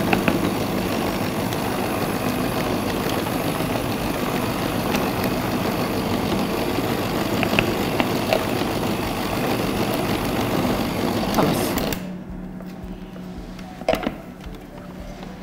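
Electric hand mixer mounted on its stand, beaters running steadily in a bowl of thick cake batter with walnuts and raisins, switched off suddenly about twelve seconds in. A couple of short knocks follow near the end.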